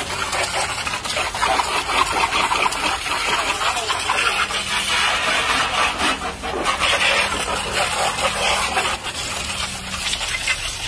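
Pressure-washer jet spraying water over a car's engine bay: a steady hiss with spattering as the spray strikes the engine and plastic covers.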